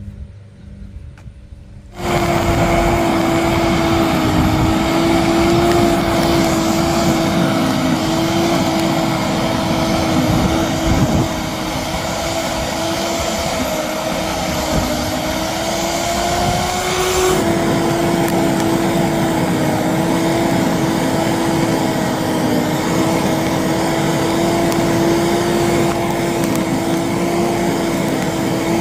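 A small motor starts up about two seconds in and runs steadily with a high, even hum and a rushing noise, its pitch rising slightly and then dropping back about two-thirds of the way through.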